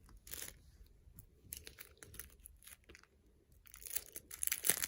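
Plastic packaging crinkling and rustling as it is handled, in scattered crackles that grow louder and busier near the end.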